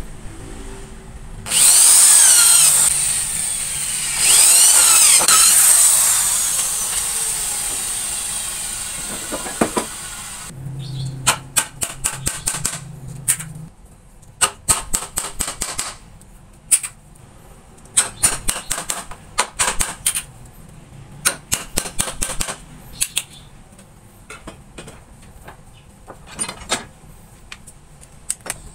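Woodworking power tool run in two short loud bursts with a wavering whine, then winding down slowly over several seconds. After that come clusters of sharp taps and clicks, like wood and tools being knocked and handled.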